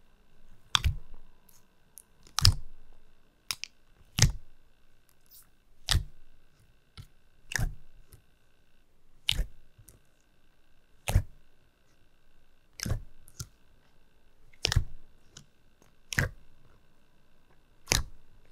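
Fingers pushing into thick, glossy slime in a plastic tub, giving a sharp wet pop about every second and a half to two seconds, eleven times in a steady rhythm.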